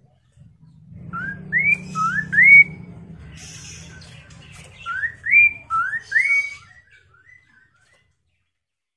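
Poksay mandarin (chestnut-capped laughingthrush) singing: two phrases of four loud, upward-sliding whistled notes, about three seconds apart, with a few softer notes trailing after the second phrase.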